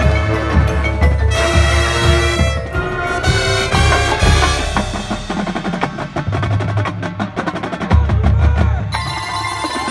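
Marching band playing: held wind and brass notes over low drum hits, then from about four seconds in a percussion-led passage of rapid drum strokes, with the low drums coming back near the end.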